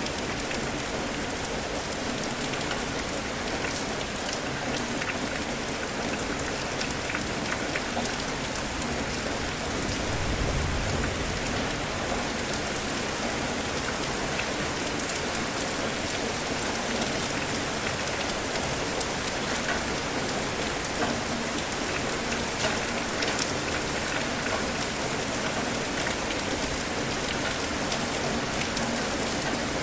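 Steady heavy rain falling and pattering on surfaces, with a brief low rumble about ten seconds in.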